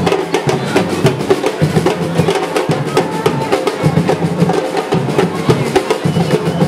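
Drums beating a fast, steady rhythm of closely spaced strokes.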